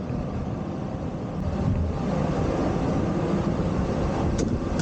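Steady low rumble of inline skates rolling along a city street, wheels on pavement mixed with street traffic, with a couple of sharp clicks about four and a half seconds in.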